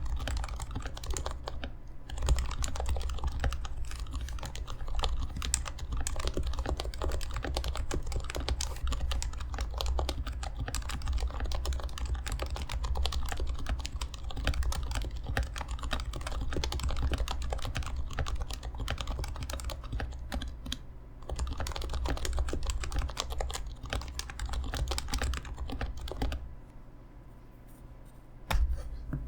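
Fast continuous typing on a Happy Hacking Keyboard Professional Classic 3: Topre electrostatic capacitive switches with 45g domes, lubed sliders and silencing rings, under blank keycaps. The typing stops for about two seconds near the end, then resumes with one louder keystroke.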